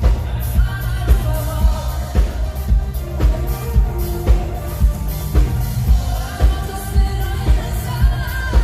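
Pop-rock band playing a song live, with a steady kick-drum beat about twice a second under bass and sustained melody lines.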